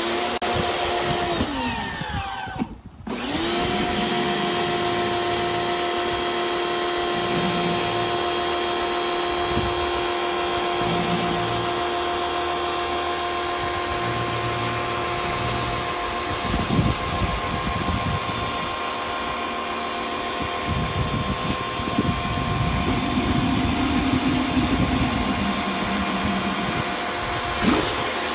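Electric pressure washer motor running with a steady whine over the hiss of the spray. About two to three seconds in it winds down in pitch and stops for a moment, then starts again and runs steadily.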